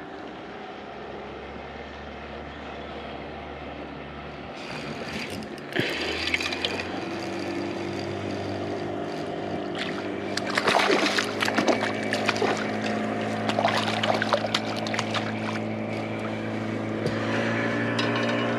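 MotorGuide Xi3 electric trolling motor humming steadily, stepping up in pitch about five seconds in. From about ten seconds in, water splashes and dribbles in short bursts as a hooked fish is fought to the side of the kayak.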